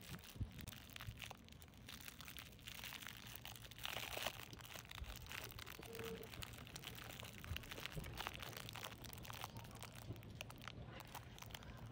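Clear cellophane sweet wrapper crinkling and crackling as it is handled and opened, a quiet run of small irregular crackles that is busiest about four seconds in.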